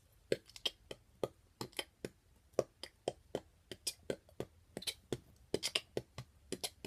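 A child beatboxing: mouth percussion of short lip pops and hissing 'ts' sounds in an even rhythm, about three a second.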